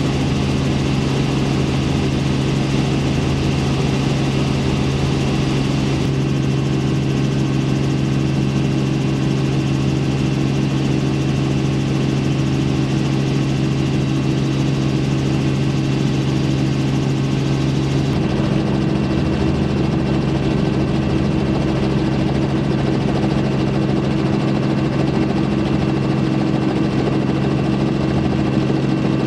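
Robinson R44 helicopter in flight, heard from inside the cockpit: the piston engine and rotor drone steadily with a slow low throb from the rotor. The mix of the drone shifts slightly about two-thirds of the way through.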